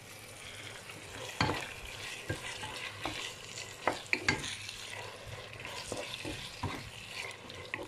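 Chicken breast strips sizzling in hot oil in a deep nonstick frying pan, stirred with a wooden spoon, with a few sharp knocks and scrapes of the spoon against the pan.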